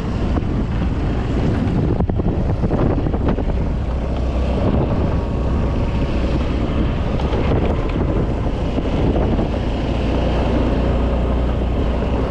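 Wind buffeting the microphone during a ride on a running motor scooter, a steady rush over a low engine rumble.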